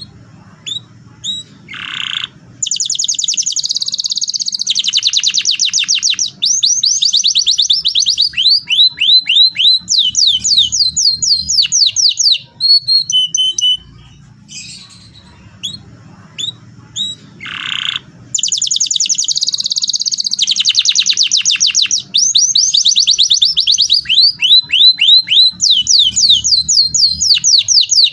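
Domestic canary singing rolling song: long fast trills of high repeated notes, then runs of slower falling notes, in two long phrases of about ten seconds each with a pause of a few seconds between them.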